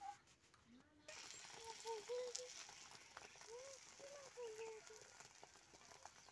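Beaten egg sizzling faintly on a hot iron tawa, starting about a second in, with faint voices in the background.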